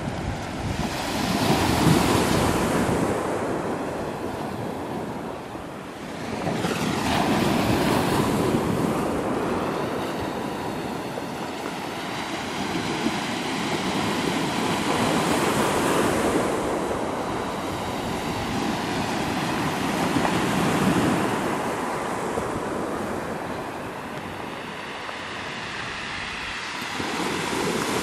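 Small waves breaking and washing up a pebble beach: a steady sea noise that swells into a louder wash every five to six seconds, about four times.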